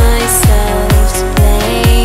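Electronic dance music: a kick drum thumping on every beat, a little over two beats a second, under sustained synth lines.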